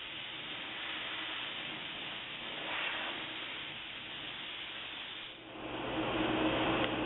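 Steam jet hissing steadily from the wand of an Optima DMF steam cleaner. About five and a half seconds in, it dips briefly and then comes back louder, with a steady hum under it.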